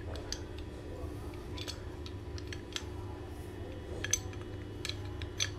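Light metallic clicks and clinks from a steel Mitsubishi Heavy pipe wrench being handled, its spring-loaded hook jaw and knurled adjusting nut worked by hand. The clicks come thicker in the last second or two, over a steady low hum.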